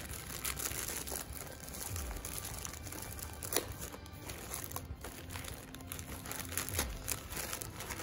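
Plastic packaging crinkling and rustling in the hands as a package is handled and opened.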